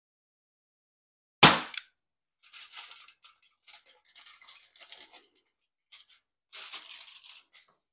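A Bug-A-Salt Shredder salt gun fires once about a second and a half in, a single sharp crack as the shot punches through a sheet of aluminum foil. After it, the foil crinkles and rustles on and off as it is handled.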